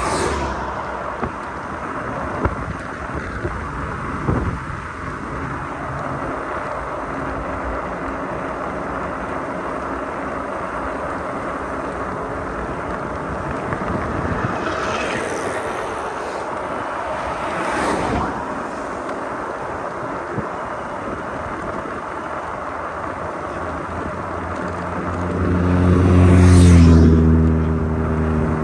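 Steady wind rush on the microphone while riding a Cyrusher XF800 e-bike. Near the end a motor vehicle's engine hum swells loudly and then fades as it passes.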